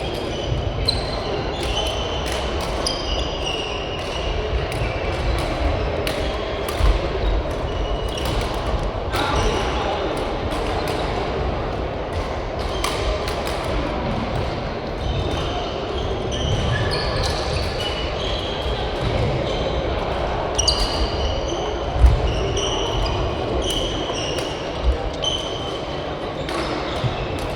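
Badminton rallies in a large hall: rackets striking the shuttlecock with sharp cracks and shoes squeaking on the court floor. Voices murmur behind.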